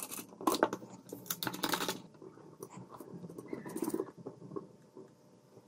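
Hands fitting the steel parts of a drill stand: quick clicks and knocks of metal on metal with small scrapes, busiest in the first two seconds, then fewer and fainter handling ticks.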